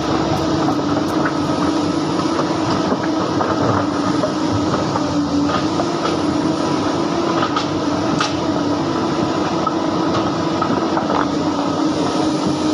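Hydraulic excavator running steadily under load, its engine holding a constant drone, with a few light knocks and clanks scattered through.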